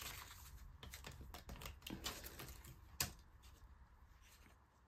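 Polymer banknotes being handled: faint crisp crinkling and rustling as a small bundle of notes is squared up and moved onto a pile on the table, with one sharper tap about three seconds in.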